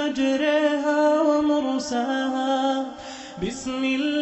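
A male reciter chanting the Quran in a slow, melodic tajweed style, drawing out long held notes. There is a short pause for breath about three seconds in.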